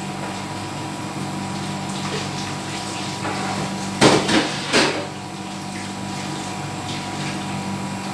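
Water running from a kitchen tap into a blender jar to rinse out leftover curry paste, over a steady electrical hum. Two loud knocks come about four and five seconds in.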